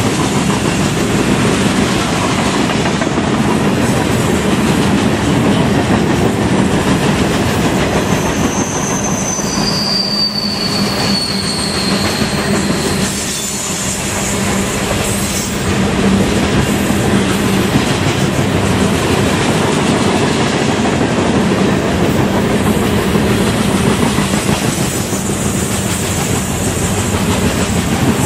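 Freight train rolling past with a steady rumble and clatter of wheels on rail. About eight seconds in, a thin, high wheel squeal comes in and slides slightly lower over the next few seconds.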